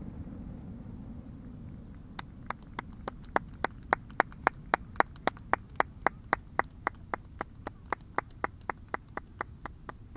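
A person clapping hands in steady, evenly paced applause, about three or four claps a second, starting about two seconds in.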